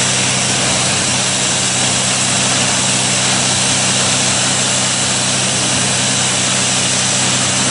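High-pressure water jetting at 500 bar: a loud, steady hiss of the water jet over the even hum of the jetting pump's engine, cutting in abruptly.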